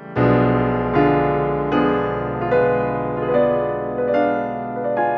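Background piano music: slow, sustained notes and chords, a new one struck roughly every second.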